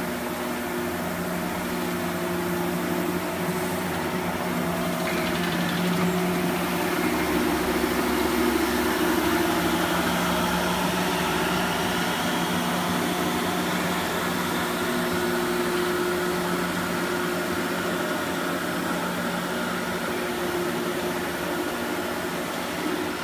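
Factory Cat XR40C ride-on scrubber dryer running: a steady motor hum with a hiss over it. It grows louder for a few seconds near the middle as the machine passes close.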